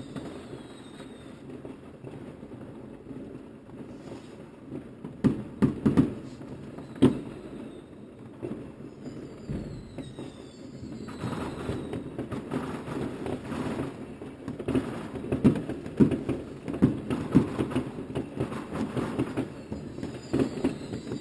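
Fireworks going off: scattered sharp bangs, the loudest cluster about five to seven seconds in, with a few falling whistles. From about halfway through, the bangs give way to dense crackling and popping.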